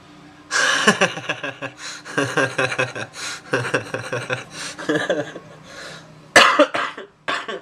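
A man laughing hard in quick repeated bursts, with a sharp, loud outburst near the end.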